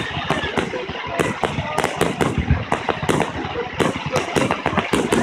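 Fireworks display: a rapid, unbroken run of shell bursts and crackling, about four bangs a second.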